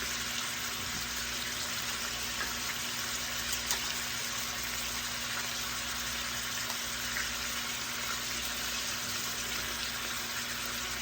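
Chicken frying in hot bacon grease in a pan, a steady sizzle with a few faint pops.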